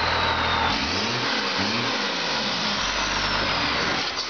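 Car doing a burnout: tyres spinning against the pavement in a dense wash of noise, while the engine revs up and down twice about a second in, then holds steady.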